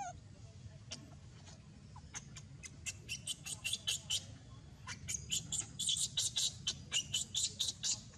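Baby Barbary macaque crying: a rapid series of short, high-pitched squeaks, about four or five a second, in two runs with a brief pause between them, the distress calls of an upset infant.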